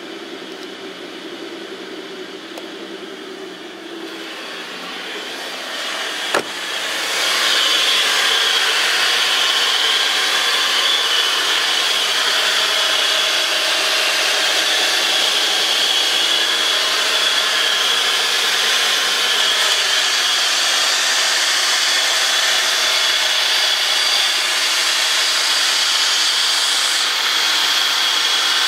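Mitsubishi Chariot N43W front drivetrain turning with a steady abnormal swishing, squealing noise. The noise is coming from between the manual transmission and the right front hub, and is still there with the transfer case removed. It builds over the first several seconds, with a sharp click about six seconds in, then holds loud and steady.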